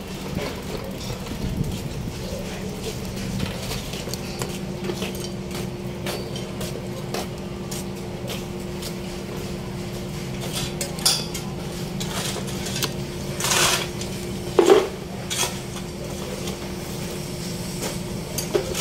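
Steady low hum with scattered metallic clinks and clicks; a few louder clatters come about two-thirds of the way through.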